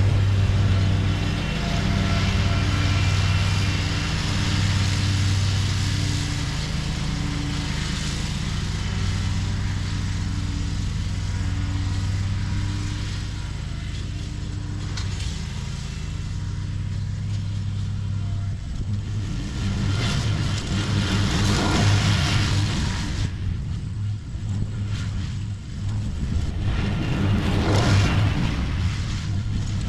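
Exmark X Series zero-turn mower running steadily with its deck mulching tall grass. About two-thirds of the way in, the sound turns rougher and uneven, with surges of hiss.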